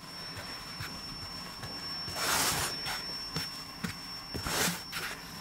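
Flour-dusted hands gathering and pinching soft Ossetian pie dough closed into a ball on a floured wooden board: quiet rubbing and handling, with two brief louder swishes about two seconds and four and a half seconds in.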